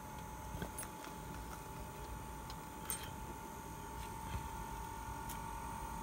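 Chinese 5 kW diesel air heater starting up, its fan running with a steady whine, plus a few faint irregular clicks. The fuel pump is not ticking yet: no fuel is being delivered.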